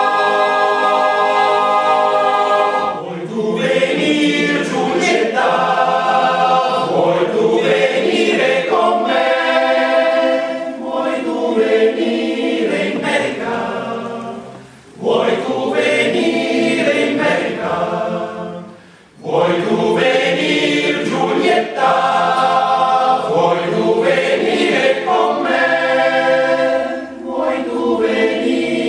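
A choir singing a cappella: a chord held at the start, then a run of sung phrases with two short breaths between them, about fifteen and nineteen seconds in.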